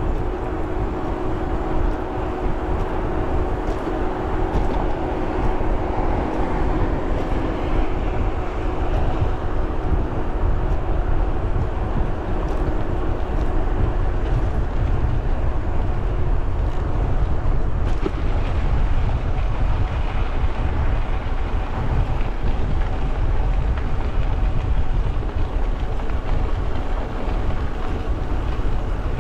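Wind buffeting the microphone and the rolling noise of a fat-tire electric bike riding along a trail. A steady hum sits over it in the first half and fades out about halfway through.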